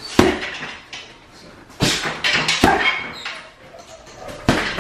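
Gloved punches landing on an Everlast heavy bag: four sharp thuds at uneven spacing, one right at the start, two in the middle and one near the end.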